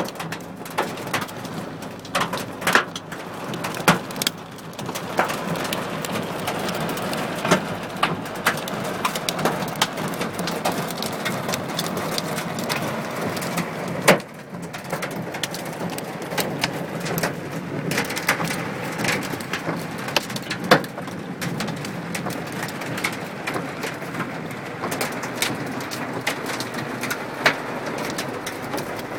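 Heavy rain and scattered hailstones drumming on a car roof, heard from inside the car: a steady wash of rain with irregular sharp knocks from individual stones, the hardest about halfway through and again about two-thirds of the way through.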